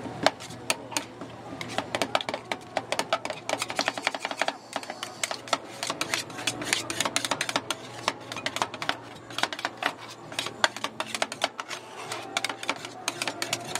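Metal spatulas scraping and clicking quickly on a steel ice-cream cold plate, as frozen ice cream is spread thin and then scraped up into rolls. The clicks and scrapes come fast and irregular over a low steady hum.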